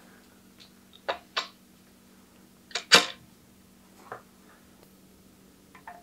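Sharp clicks and clacks of metal bicycle parts being handled while a crankset is fitted to the bottom bracket: a pair of clicks about a second in, a louder double clack near the middle, then a few fainter ticks.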